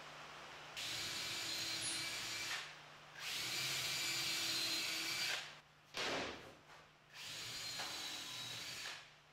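Cordless drill running in three bursts of about two seconds each, driving screws into cedar roof trim, with a short knock between the second and third.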